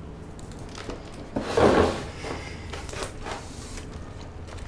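Household handling noise at a kitchen table: a short, loud scuff about one and a half seconds in, then a few light taps and rustles, over a low steady hum.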